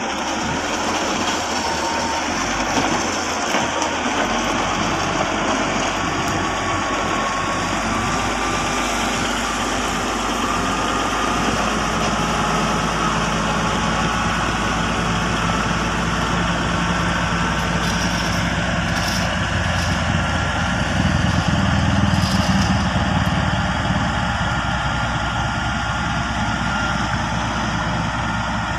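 Komatsu GD555 motor grader's diesel engine running steadily as the machine moves and grades a gravel base course with its blade, swelling briefly in loudness about three-quarters of the way through.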